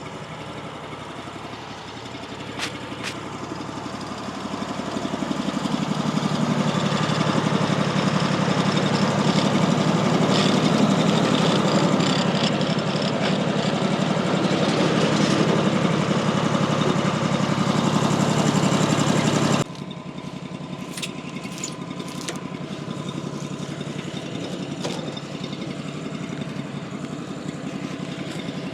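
Gas engine of a Woodland Mills HM136MAX portable bandsaw mill running as it saws pine into 6x6s. It grows louder a few seconds in and holds there, then drops suddenly to a quieter, steady run about twenty seconds in.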